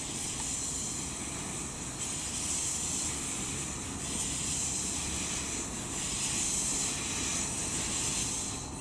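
Steady hiss of steam from the NM class steam locomotive NM25's open cylinder drain cocks as it moves off slowly, over a low rumble.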